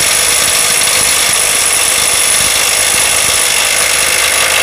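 Bull BL800NM cordless impact wrench hammering continuously on a bolt tightened to 960 Nm, on its second trigger pull at the bolt; the bolt is coming loose under the hammering.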